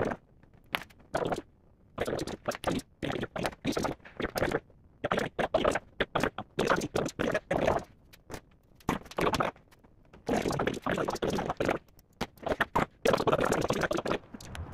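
Irregular rustling, scraping and clicking of cables and small computer parts being handled and sorted by hand.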